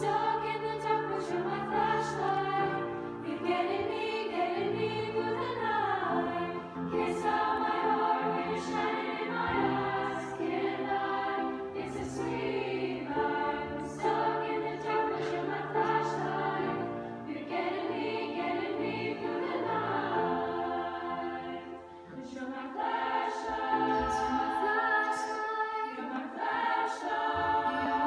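Choir of young women singing in harmony, several voice parts together, with a brief lull about two-thirds of the way through before the full sound returns.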